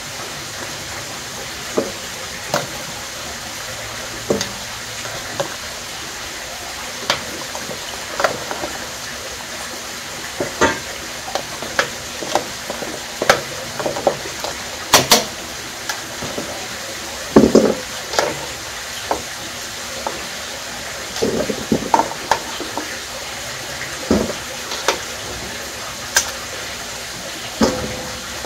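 Cooking sounds: a steady hiss with irregular clinks and knocks of a utensil against cookware, about one every second or two, loudest around the middle.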